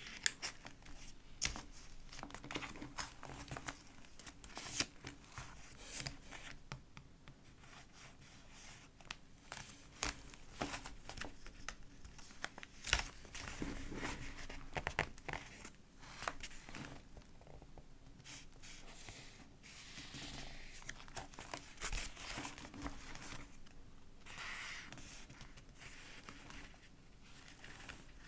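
Pages of a thick collaged paper journal being handled and turned: paper crinkling and rustling, with frequent small clicks and taps.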